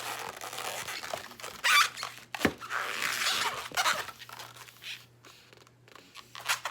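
Latex 260 modelling balloon squeaking and rubbing as it is bent and twisted into bubbles, in irregular bursts, with one short sharp squeak about two and a half seconds in.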